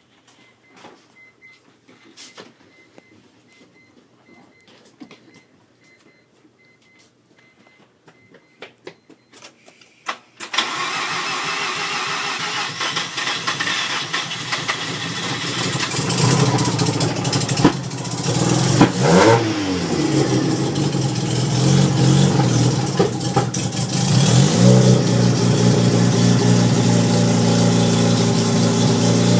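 Freshly rebuilt Mazda 13B rotary engine of a 1993 RX-7 firing up for the first time after the rebuild. It catches suddenly after about ten seconds of near-quiet with a few light clicks, then keeps running loudly. The revs are raised and let fall twice.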